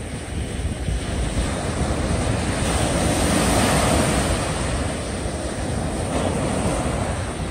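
Small waves breaking and washing up a sandy beach, with wind rumbling on the microphone. The surf swells to its loudest about three to four seconds in.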